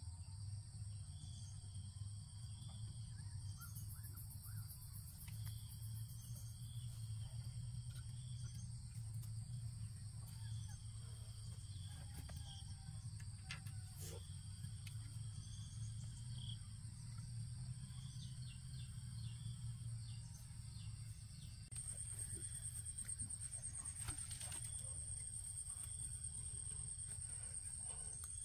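Insects calling: a steady high-pitched drone, with a shorter high chirp that repeats every second or two. About 22 seconds in, a louder pulsing trill joins. Underneath is a low steady rumble, with a few faint knocks.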